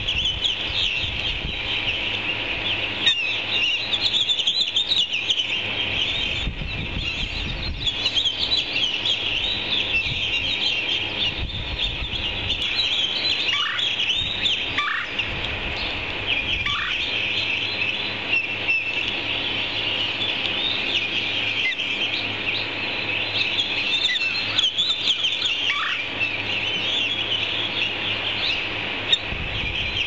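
Ospreys at the nest chirping while an adult feeds fish to its chicks: a continuous stream of rapid, high chirps, typical of chicks begging for food. A few longer calls slide downward in pitch near the middle.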